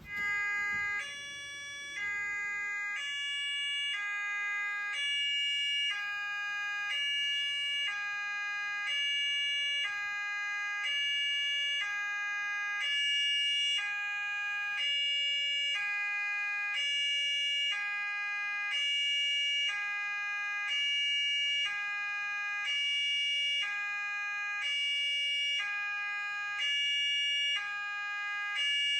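Two-tone hi-lo siren, switching evenly between a higher and a lower note about once a second, starting abruptly and repeating steadily.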